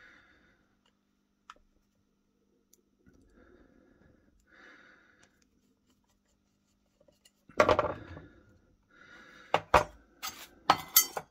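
Steel screwdriver and antique pistol handled on a workbench: faint scraping at first, then a loud knock about two-thirds of the way through and a quick run of sharp metallic clinks near the end.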